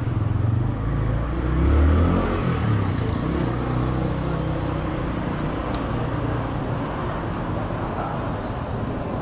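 A motor vehicle's engine passing close by, loudest about two seconds in and then fading into a steady hum of street traffic.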